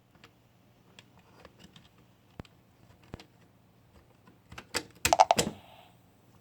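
Speaker of a failed DoorBird D101 video doorbell crackling: scattered sharp clicks, then a burst of loud crackles about five seconds in. The crackling is the unit's only sign of life after a malfunction.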